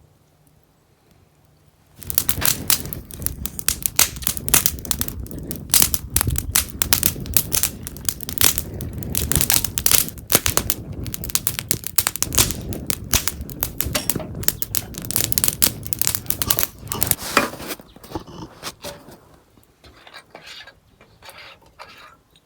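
Dense, loud crackling and crinkling noises, many sharp clicks close together. They start about two seconds in and thin out to fainter crackles over the last few seconds.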